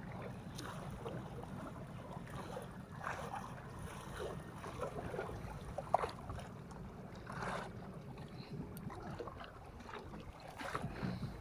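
Sea water lapping and splashing against shoreline rocks, with short splashes every second or two over a steady low hum.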